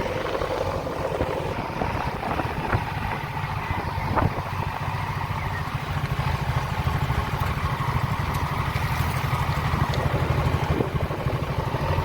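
A vehicle engine running steadily with a fast low pulse, growing a little louder about halfway through, with a couple of faint clicks.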